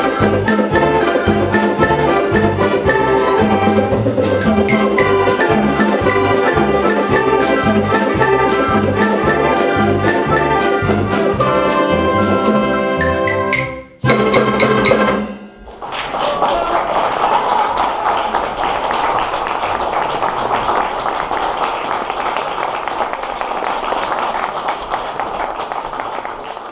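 Youth wind band with drum kit playing a piece with a steady drum beat. It ends with one final sharp hit about halfway through, followed by audience applause.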